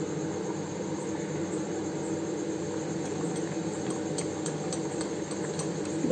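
Khasta, a folded flour-dough snack, deep-frying in hot oil in a kadhai: a steady sizzling and bubbling, with a few faint clicks in the middle stretch.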